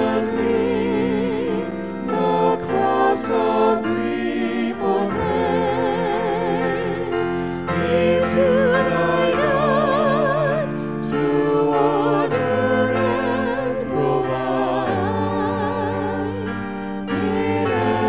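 A hymn sung by several voices with vibrato over a sustained instrumental accompaniment.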